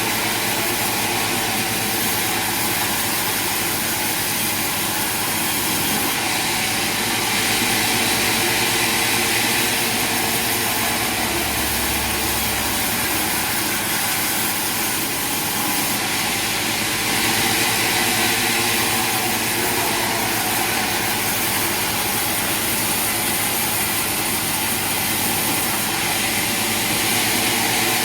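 Sawmill machinery running steadily, a loud continuous mechanical noise with a constant hum and no pauses.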